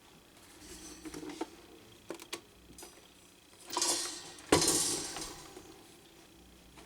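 Handling noise from a plastic table fan being moved and turned over: scattered light clicks, a swishy scrape just under four seconds in, then a sharp knock a moment later as it is set down, which rings briefly.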